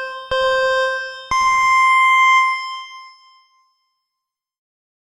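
Electronic countdown beeps in the style of a time signal: a short lower beep, then about a second later a longer beep an octave higher that fades away over about two seconds.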